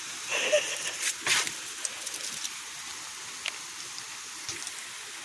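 Water spray from a garden hose hissing and pattering steadily, with a few short splashing snaps in the first second and a half as a dog bites at the stream.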